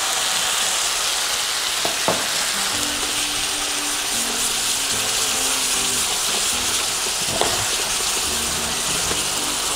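Prawns and garlic butter sauce sizzling steadily in a hot stainless steel pan as a metal ladle stirs them, with two light knocks, about two and seven seconds in.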